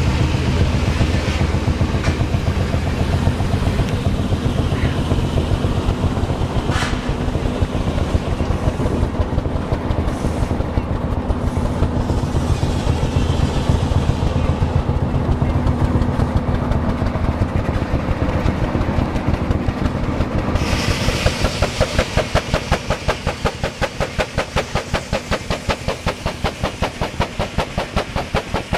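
Steam engine of a steam-powered sawmill running with a steady, rapid rhythmic rumble. About twenty seconds in, a loud hiss of exhausting steam joins it, chuffing evenly at about four beats a second.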